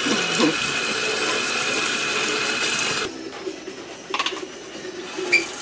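Kitchen faucet running and splashing onto a head of hair in a stainless steel sink as hair dye is rinsed out. The water stops abruptly about three seconds in, leaving a few faint clicks.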